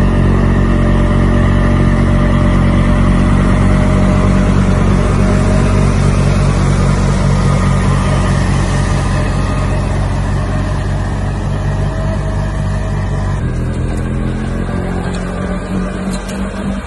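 Tractor engine running steadily under load while driving a snowblower, with the blower's noise over it. About thirteen seconds in, the sound changes abruptly to a slightly quieter engine.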